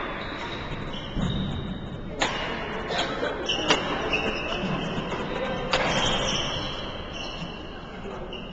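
Badminton rackets striking a shuttlecock in a rally: several sharp hits a second or two apart, echoing in a large hall, with high squeaks from shoes on the court floor between them.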